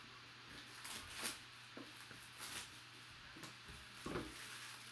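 Cardboard trading-card box being handled and slid out of its sleeve: a few brief, faint rustles and scrapes of card on card.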